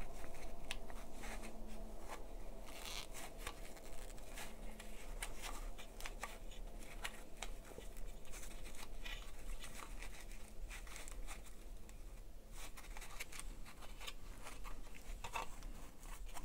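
A thick foam pad being twisted and worked through a slot in the plastic housing half of a Makita CL001GZ cordless vacuum: scattered rustling and rubbing of foam on hard plastic, with many small clicks as the housing is handled.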